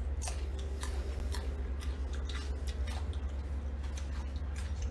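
A person chewing food in the mouth: a string of small, irregular crunchy clicks over a steady low hum.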